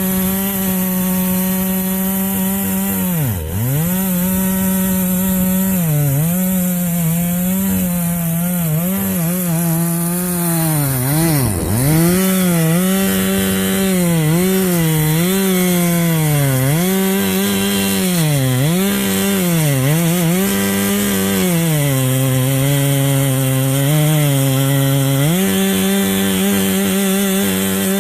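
Chainsaw on an Alaska chainsaw mill running at full throttle while ripping a log lengthwise. Its engine pitch keeps sagging and recovering as the cut loads it, dropping sharply twice: a few seconds in and near the middle.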